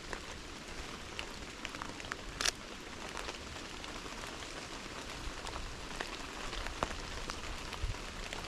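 Steady rain falling, with scattered drops ticking close by; one sharper tick about two and a half seconds in.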